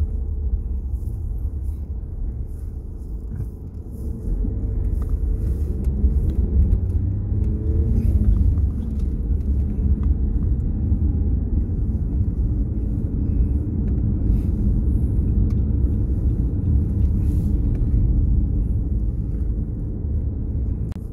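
Car engine and tyre rumble heard from inside the cabin while driving, getting louder about four seconds in as the car picks up speed, the engine note climbing a few seconds later.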